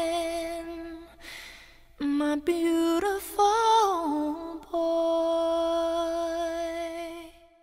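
A slow, gentle vocal melody, hummed like a lullaby: a few short notes, then one long held note from about five seconds in that fades out near the end.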